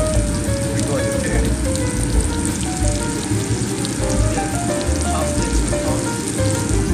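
King bolete mushrooms frying in foaming butter and oil with rosemary, a steady sizzle, with background music playing underneath.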